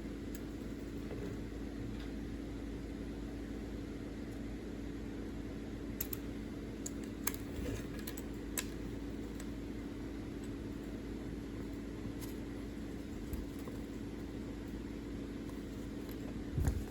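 Steady low hum with a few scattered small clicks of LEGO pieces being handled, bunched between about six and nine seconds in, and a dull low thump near the end.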